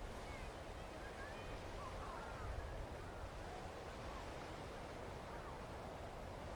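Beach ambience: a steady wash of wind and surf with a low wind rumble on the microphone, and faint, short bird chirps scattered through it.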